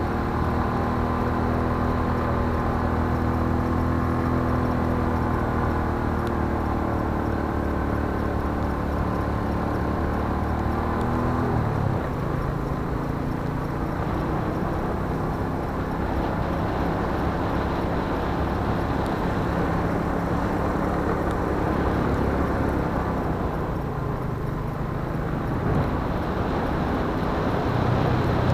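A vehicle's engine running as it drives along a road, heard from on board. It is a steady hum whose pitch shifts down about halfway through and rises again, a little louder, near the end.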